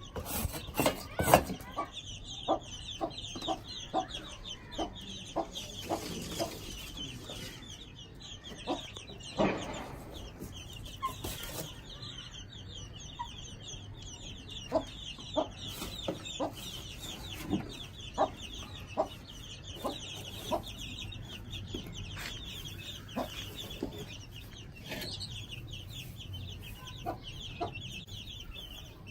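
A brood of Aseel chicks, about 17 days old, peeping continuously in a dense high chorus, with scattered sharp taps throughout.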